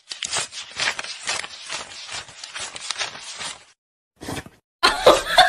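Paper banknotes rustling and crackling as a wad of notes is handled and flicked, a rapid, irregular crinkle. Near the end a louder sound with a wavering pitch starts.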